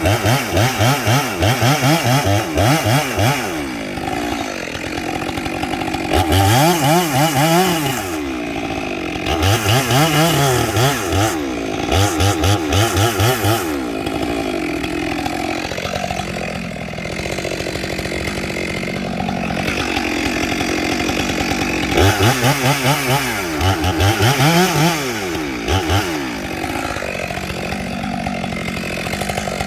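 Stihl MS 462 two-stroke chainsaw with a 28-inch bar cutting into a dead pine. Its engine speed rises and falls over and over, with stretches of fast, regular pulsing between steadier running.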